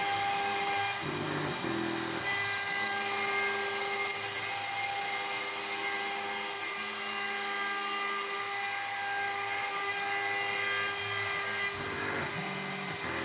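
CNC router engraving acrylic sheet: the spindle runs with a steady whine while the stepper motors hum in tones that change pitch every second or so as the cutter moves.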